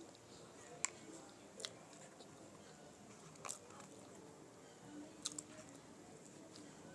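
A person biting and chewing a patty close to the microphone, faint, with a few sharp clicks scattered through.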